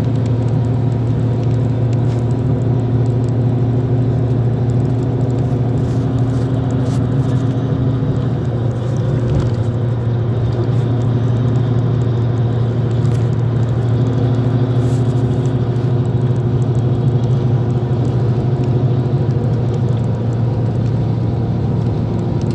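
Steady low drone of a vehicle's engine and running noise heard from inside the moving vehicle, its pitch shifting slightly a couple of times.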